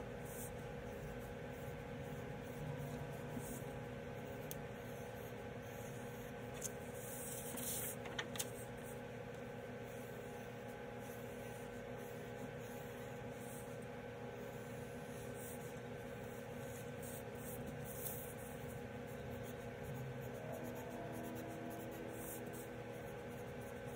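Pencil scratching on paper in faint, irregular strokes as outlines are sketched, over a steady low hum.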